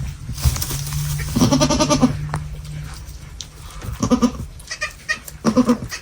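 Goats bleating: a long, quavering bleat about a second and a half in, then two shorter bleats near the end.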